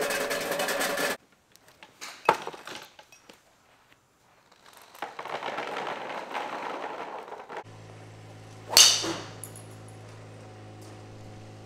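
Range-ball dispenser dropping a stream of golf balls into a plastic basket, rattling for about the first second. About nine seconds in, a golf club strikes a ball off the mat with a sharp crack and a brief high ring, over a steady low hum.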